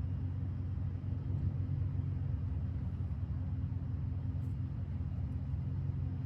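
A steady low hum, constant in level and pitch, with no distinct clicks or knocks.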